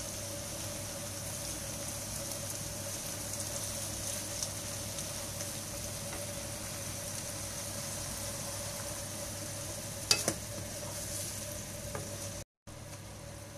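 Sliced beef and onion sizzling in a frying pan as a wooden spatula stirs them, over a steady hum. The spatula knocks once sharply against the pan late on.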